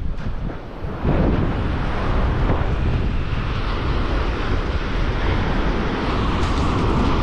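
Wind buffeting the microphone over the wash of surf breaking on a sandy beach, a steady rumbling noise that grows louder about a second in.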